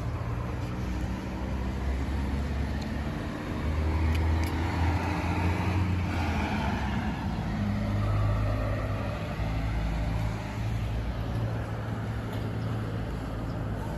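Motor vehicle engine running close by: a low, steady hum that grows louder between about four and nine seconds in, then eases off.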